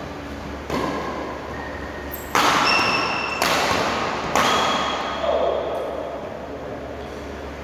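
Badminton rackets striking the shuttlecock four times in a doubles rally, each sharp hit echoing through the hall, over a steady low hum.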